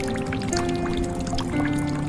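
Slow, calm music of held notes that change pitch every half second or so, laid over water dripping and pouring, with many small scattered drops.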